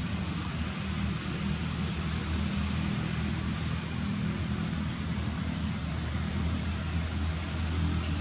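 Steady low engine hum over a constant hiss, with no single event standing out.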